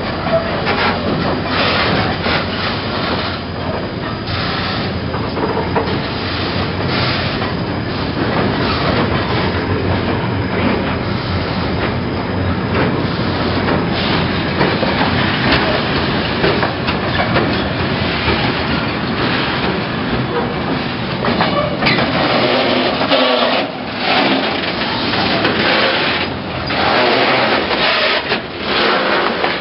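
Freight train of container flatcars rolling past at close range: a steady rumble and rattle, with the steel wheels clacking over the rail joints. The deep rumble thins out about three quarters of the way through.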